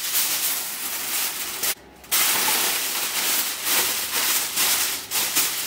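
Aluminium foil crinkling and rustling as a sheet is laid over a roasting pan and pressed down around its rim, with a short pause nearly two seconds in.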